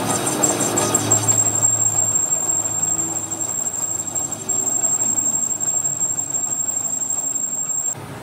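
Metal lathe turning a steel truck wheel rim, the cutting tool running against the spinning steel with a steady machine noise and, from about a second and a half in, a steady high-pitched squeal. The squeal stops abruptly near the end and the sound drops.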